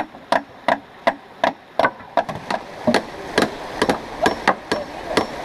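Several hammers driving nails into the wooden decking of a footbridge: uneven, overlapping blows, about three a second.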